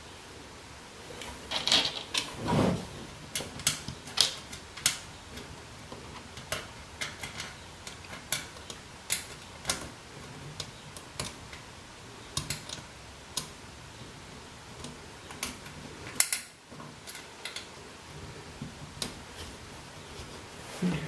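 Screwdriver tightening the screws that hold a power supply in a metal computer case: irregular sharp metallic clicks and taps, with a brief cluster of handling noise about two seconds in.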